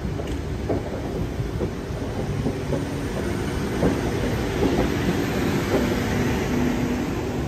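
Sydney Trains double-deck electric suburban train rolling past along the platform. Its wheels clack irregularly over the rail joints under a steady rumble, with low humming tones from the train's running gear.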